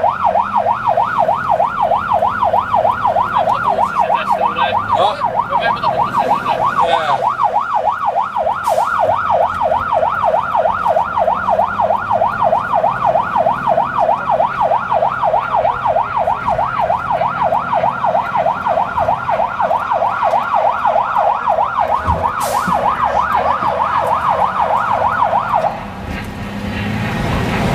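Fire engine siren on a fast yelp, sweeping rapidly up and down several times a second, heard from inside the moving vehicle over engine and road noise. The siren cuts off about 26 seconds in, leaving the engine and road noise.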